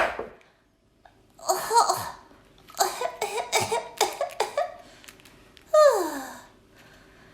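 A person's voice making baby-bird cheeps and squawks for a bird puppet: a call about a second and a half in, then a quick run of short cheeps, and near the end a squawk that falls steeply in pitch.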